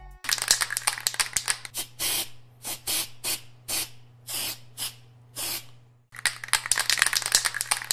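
Aerosol spray paint cans hissing in spurts: a quick run of short bursts, then separate bursts of about half a second each, a brief gap about six seconds in, and another quick run. A steady low hum runs underneath.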